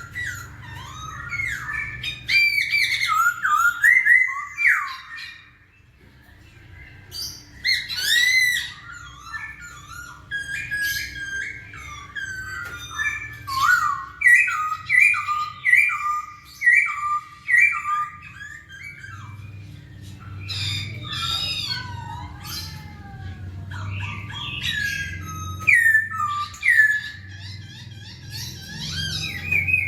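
Black-throated laughingthrush (poksay hongkong) singing steadily: a varied, rapid run of loud whistled notes that slide up and down, mixed with squawky calls, with a short lull about five seconds in. A faint low hum runs underneath.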